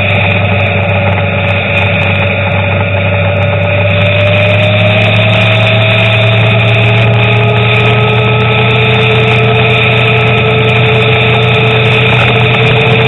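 Car engine and road noise from a vehicle driving at a steady speed: a continuous loud drone with a faint whine that slowly shifts in pitch.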